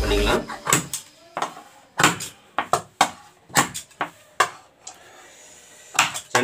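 Tailor's shears snipping through shirt cloth: a run of short, crisp cuts about every half second, a pause of about a second, then one more cut near the end.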